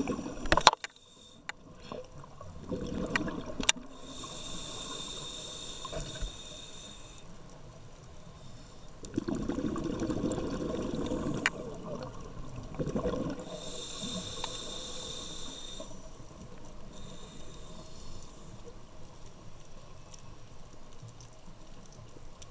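Scuba diver breathing through a regulator underwater: gurgling bursts of exhaled bubbles alternating with two long hissing inhalations, with a few sharp clicks in the first few seconds.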